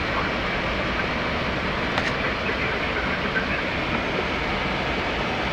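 Steady rush of airflow and engine noise inside a Boeing 767 flight deck on approach, with a single short click about two seconds in.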